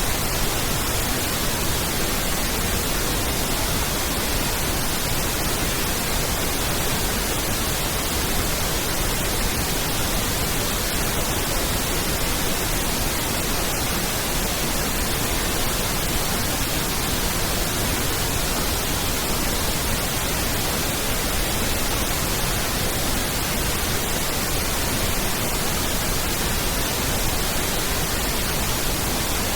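Pink noise test signal: a steady, even hiss spread across the whole range, used for aligning and equalising a sound system.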